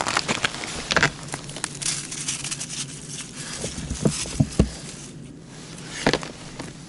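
Boots crunching irregularly over crusted snow and ice, with a few dull low thumps about four seconds in and a sharp crunch near the end.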